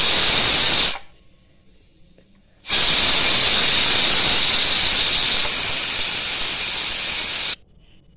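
Aluminium pressure cooker letting steam out through its weight valve: a loud, steady hiss that stops abruptly about a second in, starts again just before three seconds and cuts off about seven and a half seconds in, as the pressure is let off after cooking.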